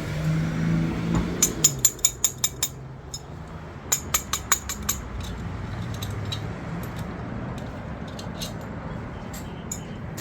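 Light metal-on-metal tapping on the camshaft of a Ford 5.4 2V cylinder head as it is worked loose. Two quick runs of sharp clicks about a second long, then a few scattered taps.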